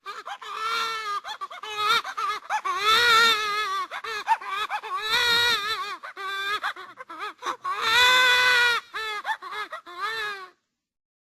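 A high-pitched, wavering voice sound effect: a series of long warbling, wailing cries with a quick trembling pitch, stopping about ten and a half seconds in.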